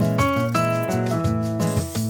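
Background music: plucked melodic notes over a steady bass line and drums.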